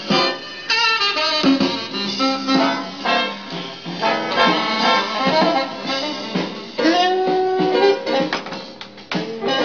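Background music with instruments playing, a few long held notes near the end.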